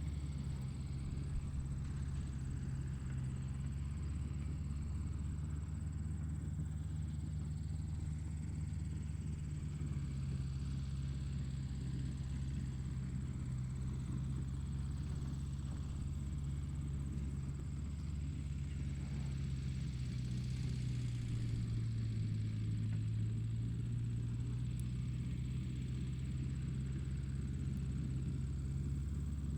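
Tractor engine running steadily, a deep drone; its pitch drops a little for a few seconds about two-thirds of the way in, then comes back up.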